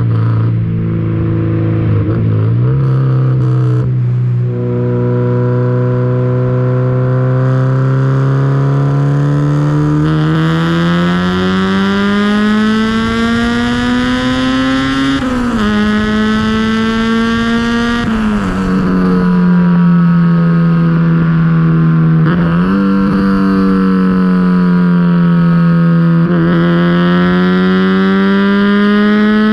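Honda K20A2 2.0-litre inline-four in a swapped Civic EG pulling hard through the gears: the engine note holds steady at first, then climbs and falls back sharply several times at the gear changes before climbing again near the end.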